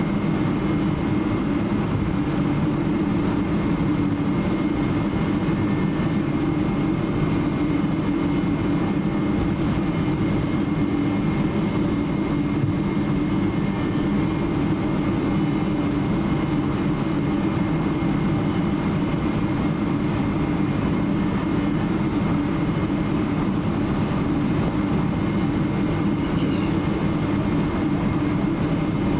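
Steady cabin drone of a Boeing 777-300 airliner taxiing, its jet engines at low taxi power, with a faint steady high whine over the low hum.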